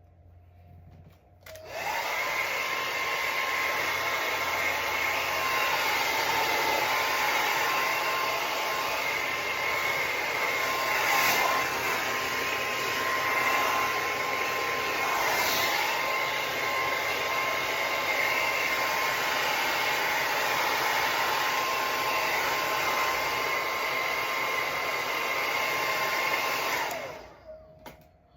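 Handheld hair dryer running steadily with a high whine, switched on about a second and a half in and switched off near the end.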